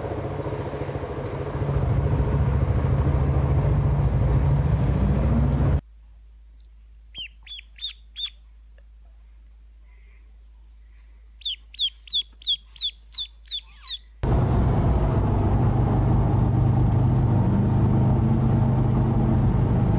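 Ducklings peeping: two runs of short, falling chirps, about four and then about eight. Before them a loud steady rumble that stops abruptly. After them a motorcycle rides on a highway, its engine and road noise a loud steady drone.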